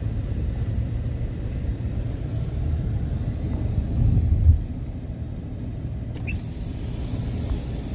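Steady low rumble of a car driving along the road, swelling briefly about halfway through.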